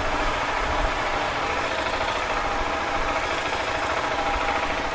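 KTM 690 SMC R supermoto's single-cylinder engine idling steadily.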